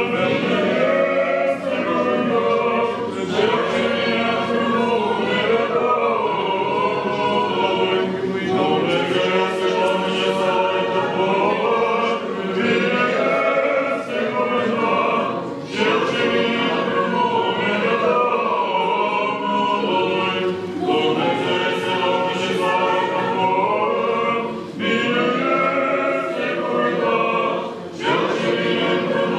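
Eastern Orthodox liturgical chant sung by a choir of unaccompanied voices, in long sustained phrases with brief breaks between them.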